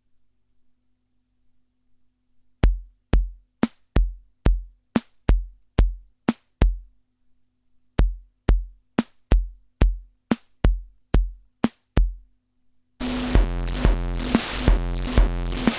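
Korg Monotribe analog drum section playing a beat of deep kick drums with sharp noise hits, about two a second. Near the end a loud, sustained analog synthesizer sound comes in over the beat.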